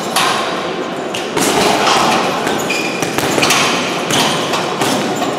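Boxing gloves punching a heavy bag: several thuds at uneven intervals over steady background noise.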